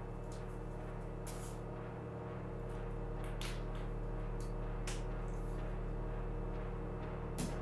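A hard-shell briefcase being handled and closed: a few short clicks and rustles, the sharpest near the end, over a steady low hum.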